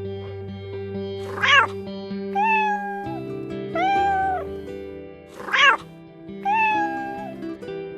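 Domestic cat meowing about five times, over steady background music.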